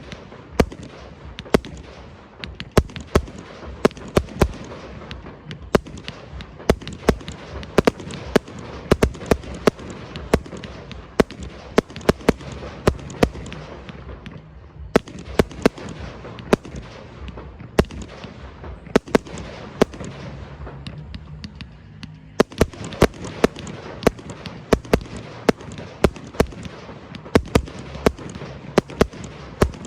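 Aerial fireworks show: a steady run of shell bursts and reports, several a second, over a continuous crackling rumble.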